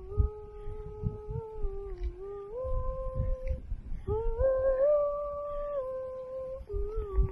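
A person humming a slow tune in long held notes that step up in pitch about a third of the way in, rise again about halfway through, and slide back down to the opening note near the end.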